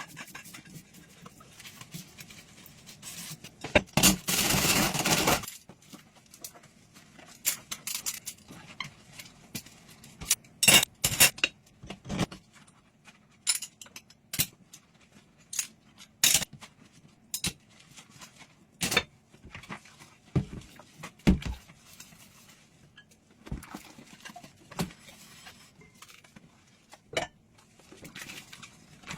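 Dishes and cutlery clinking and knocking against each other as they are washed by hand, in scattered irregular strikes. A brief rushing noise about four seconds in.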